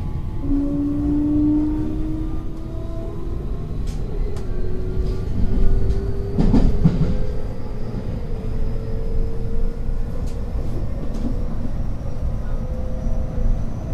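Running sound inside a JR West 223 series electric train: the traction motors' whine rises slowly in pitch as the train gathers speed, over a steady rumble of wheels on rail. There are a few clicks from the rails, and a louder rumble about six and a half seconds in.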